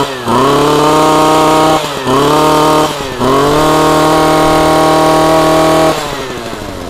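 Ryobi 24cc two-stroke brush cutter engine revved by repeated throttle squeezes: the revs dip briefly and climb again three times, then are held high for a couple of seconds and released near the end, falling back toward idle.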